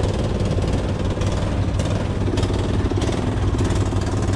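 Fishing boat's engine running steadily with a low, even drone.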